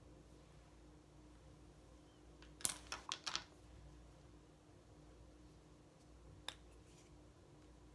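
Small plastic makeup items being handled: a quick run of sharp clicks about three seconds in, then a single click a few seconds later as a small cosmetic stick is handled.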